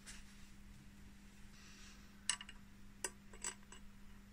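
A few faint metallic clinks, starting about two seconds in, as head-bolt washers are dropped into the bolt holes of a BMW M52 cylinder head, over a faint steady hum.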